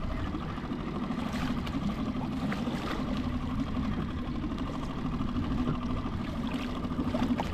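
Wind and water rushing around a moving fishing kayak on choppy sea, with a steady low mechanical hum underneath.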